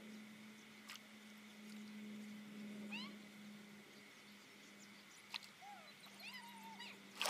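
Several short animal calls, each bending quickly up or down in pitch, over a steady low hum. A loud splash in the water comes right at the end.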